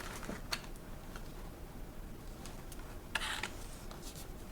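Faint handling of doll packaging and small plastic accessories: scattered light clicks, with a brief rustle a little over three seconds in.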